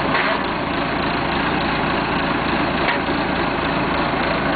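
1976 Massey Ferguson 50D backhoe's engine running steadily at idle.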